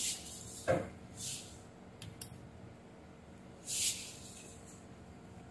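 Quiet room tone broken by a soft knock near the start, two faint sharp clicks about two seconds in, and two short breathy hisses.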